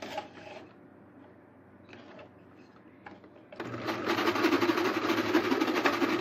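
Singer domestic sewing machine stitching a seam at a steady fast speed. It starts about halfway through and runs for about three seconds, after a few light clicks.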